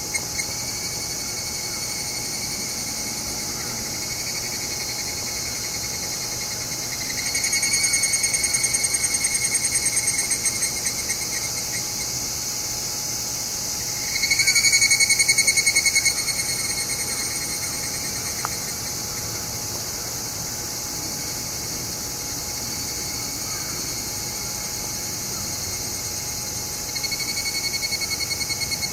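Higurashi (evening cicadas) calling: separate phrases of fast, even pulsing a few seconds long. One comes about seven seconds in, the loudest about halfway through, and another near the end, over a steady high insect chorus.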